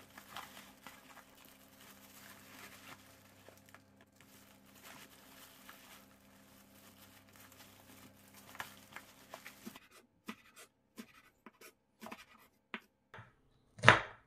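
Quiet scratching and handling noise in a kitchen over a steady low hum. About ten seconds in, the hum stops abruptly. Scattered light clicks follow, with a sharp knock just before the end.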